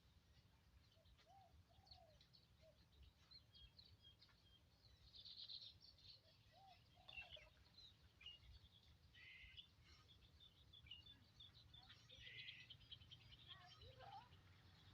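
Faint birds chirping and trilling, many short calls, over a low steady rumble.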